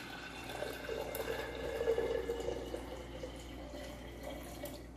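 Water poured from a glass jug into a glass mason jar over a layer of pea seeds: a steady pouring splash that tapers off near the end as the jar fills.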